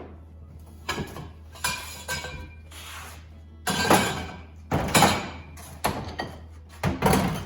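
Irregular metal clanks and knocks from a breaker bar with a pipe cheater working the pinion nut of a Ford 8.8 rear axle, crushing the crush sleeve to set pinion preload. The loudest knocks come about four, five and seven seconds in.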